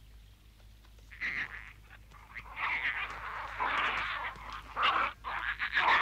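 Cartoon bear cubs making contented vocal noises: a short rough call about a second in, then a longer run of rough, noisy calls from about halfway through.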